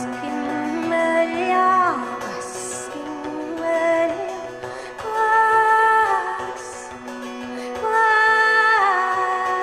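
Live band music with a woman singing long held notes that slide downward at the end of each phrase, over a sustained bass note and light cymbal strokes.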